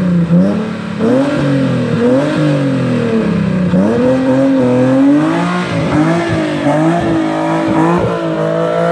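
Nissan 370Z's 3.7-litre V6 with a modified exhaust being revved over and over, the engine note rising and falling in quick blips.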